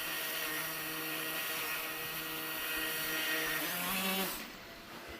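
Electric propellers of a small tail-sitter drone whirring steadily in flight. About four seconds in, the pitch steps up briefly before the sound fades out.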